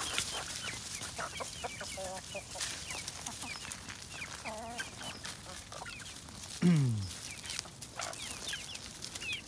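A flock of chickens, hens, young pullets and a rooster, clucking and giving many short, high, falling peeps, with a couple of wavering trilled calls. About seven seconds in comes one loud, low note that falls in pitch.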